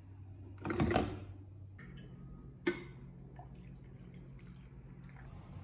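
Electric drip coffee maker with a short, loud burst of gurgling about a second in. About halfway through, a single sharp clink of the glass carafe follows, then coffee is poured from the carafe into a ceramic mug.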